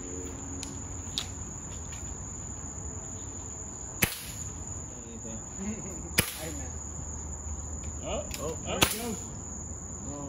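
Three .22 air rifle shots, each a sharp crack, a couple of seconds apart, over a steady high chirring of crickets.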